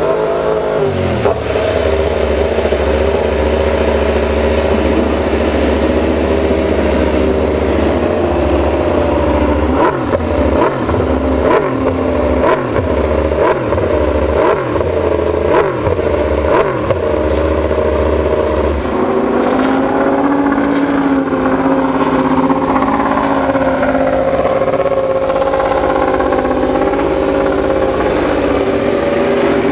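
Suzuki GSX-RR MotoGP inline-four engines running on stands. About ten seconds in, a run of about nine quick throttle blips revs up and falls back each time. Near the twenty-second mark the deep low note drops away and a steadier engine note carries on with slow rises and falls.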